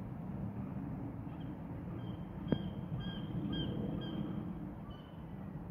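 A bird giving a run of short, high calls, about two a second, over a low background rumble that slowly fades. A single sharp click about halfway through.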